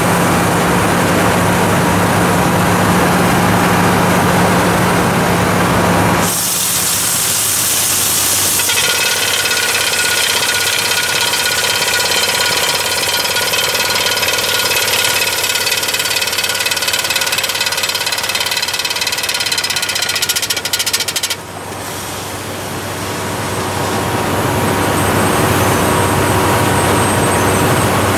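Drill rig running and boring through frozen ground, with compressed air blowing out the cuttings. About six seconds in there is a rush of air, then a steady rattling drill sound that cuts off abruptly about three-quarters of the way through, after which the noise builds back up.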